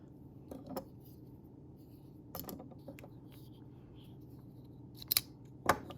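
Sharp metallic clicks from folding pocket knives being handled, a few scattered ones with the two loudest about five seconds in, over a faint steady low hum.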